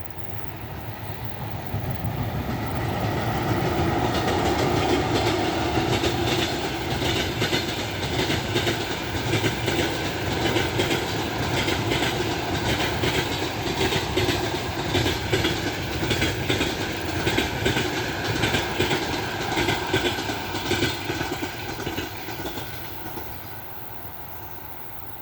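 EP1M electric locomotive with a passenger train passing. A steady hum builds as it approaches, then the wheels clatter rhythmically over the rail joints, fading near the end.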